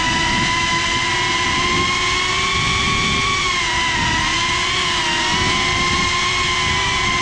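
GePRC CineLog 35 FPV cinewhoop drone's motors and ducted propellers, heard from the GoPro riding on it in flight: a loud, steady whine of several tones over a rumble, wavering and dipping slightly in pitch with the throttle, most noticeably about four seconds in.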